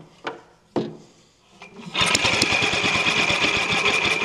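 Small air-cooled Wells engine with a pot-metal block being spun by hand to start. It gives a few sharp pops, then catches about two seconds in and runs with rapid, even firing and a steady high whine.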